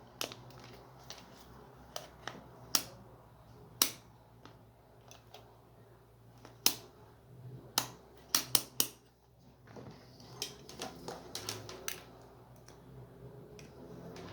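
Scattered sharp plastic clicks and taps as a digital multimeter is handled and set up to test that it works after a battery change, including a quick run of three clicks about halfway through.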